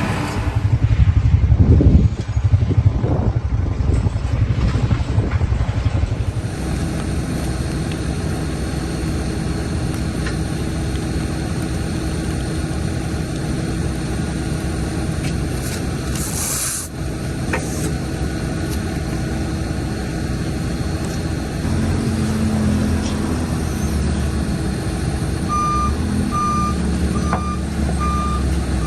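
Tractor engine running steadily while driving a round baler, louder for the first few seconds. Near the end a regular electronic beep starts, repeating about once or twice a second.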